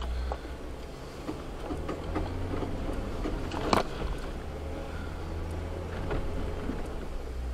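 Jeep engine rumbling at low revs as it crawls up a rocky trail in four-wheel-drive low, with scattered creaks and knocks from the vehicle working over the rock and one sharp knock about halfway through.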